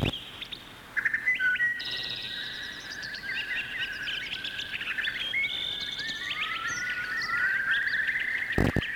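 A chorus of songbirds chirping and twittering, many quick overlapping calls and trills, from a pre-recorded sound-effects track. A couple of sharp clicks sound at the very start and again near the end.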